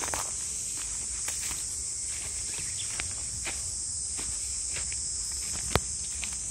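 Steady high-pitched chorus of insects, with scattered small clicks and rustles of footsteps and handling. A single sharp click near the end is the loudest sound.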